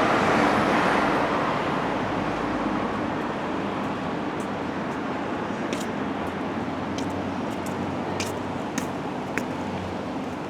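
Rushing noise of a road vehicle, loudest at first and slowly fading away, with a few faint clicks in the second half.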